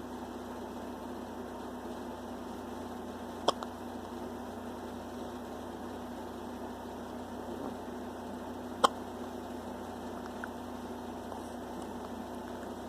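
A baby hiccupping twice, two short sharp hiccups about five seconds apart, over a steady electrical hum.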